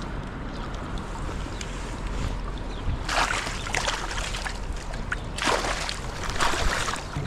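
Water splashing in two bursts, each about a second long, around three and five and a half seconds in, over a low steady rumble.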